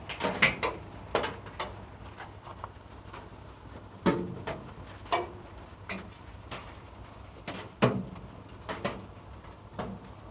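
Irregular knocks and clicks of small hard objects being handled and set down on a workbench, about a dozen at uneven spacing, some with a short ring.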